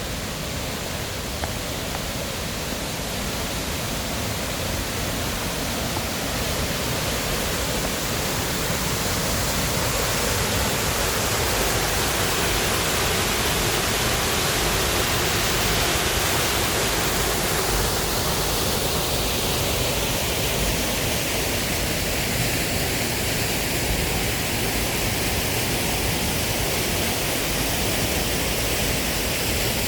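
Water of a gorge's falls and stream rushing steadily, a dense even noise that grows a little louder over the first ten seconds.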